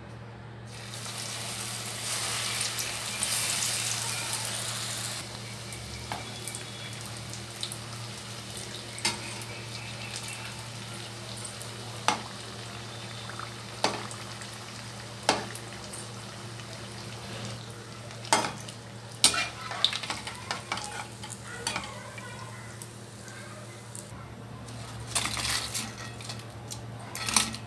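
Chicken tikka spring rolls deep-frying in medium-hot oil: a steady sizzle that swells about a second in, is loudest for the next few seconds, then settles. Scattered sharp clicks of a utensil against the pan run through it.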